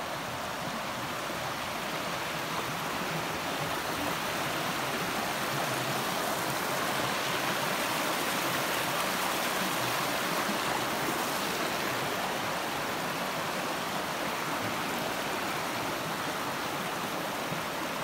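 The River Ffyddion, a shallow river, rushing over rocks and stones in a steady wash of water noise that grows a little louder midway.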